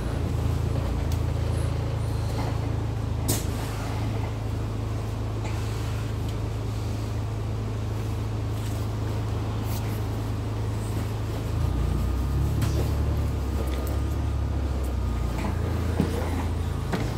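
Cabin sound of a moving ADL Enviro400ER double-decker bus: its Cummins engine drones steadily, and the note shifts lower and heavier about two-thirds of the way through. There are a few sharp clicks and rattles, the clearest about three seconds in.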